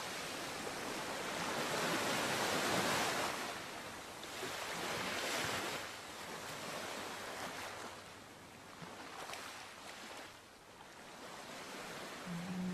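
Rushing, surf-like noise that swells and fades every few seconds. A low held musical tone comes in just before the end.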